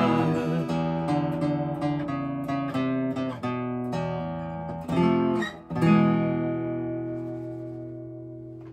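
Steel-string acoustic guitar playing the closing bars of a song: picked notes and chords, then a last chord struck about six seconds in and left to ring and fade out.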